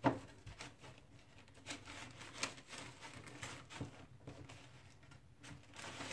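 Paper sterile-glove wrapper being handled and unfolded, rustling and crinkling with small scattered ticks; a single sharp knock right at the start is the loudest thing.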